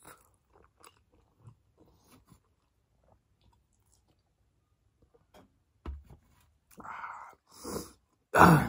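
Close-miked mouth sounds of a person eating chicken momos: faint chewing and small wet clicks, then a near-quiet stretch while he sips a drink. Louder chewing and mouth noises follow in the last few seconds, loudest just before the end.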